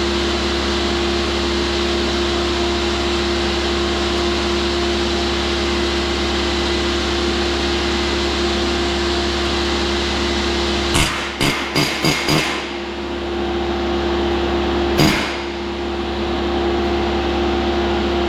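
Steady machine hum with a constant tone. About eleven seconds in, a quick run of about five sharp metal hits sets a test rivet in sheet steel against a chunk of steel used as a bucking bar, and a single hit follows a few seconds later.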